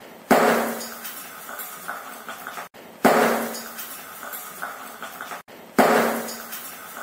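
An egg bursting on a hot iron pan over a gas flame: a sudden sharp pop that fades away over a second or so, heard three times in a row about every three seconds.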